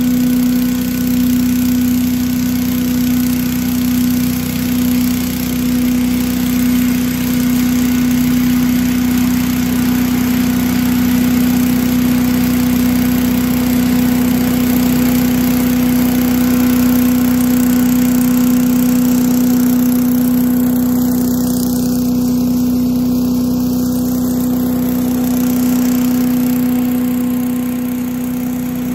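8 hp Little Wonder walk-behind leaf blower, mounted on a tractor's three-point hitch, running flat out: a loud, steady engine drone with a strong fan hum and a rush of blown air. It eases slightly near the end.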